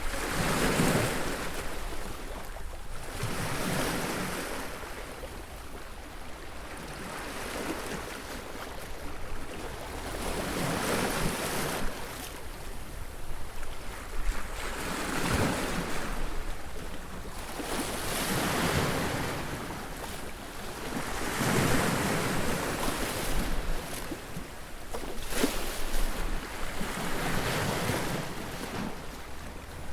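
Surf on a beach: waves breaking one after another, each a swelling rush of noise that washes back, about every three to four seconds.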